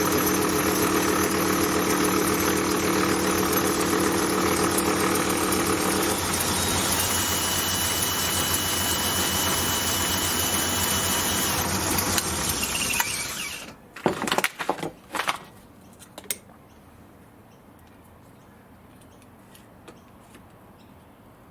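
A metalworking machine tool running steadily through its last cut, then switched off about 13 seconds in, its sound dying away within a second. A few sharp clicks and knocks follow.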